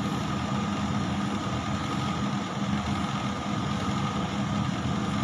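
A steady mechanical hum with a low tone and a fainter, higher whine, holding an even level.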